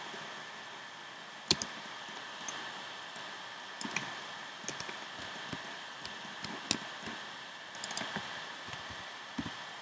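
Scattered, irregular clicks and taps of a computer mouse and keyboard being worked, the sharpest about a second and a half in and a quick cluster near eight seconds, over a steady hiss of the recording's background noise.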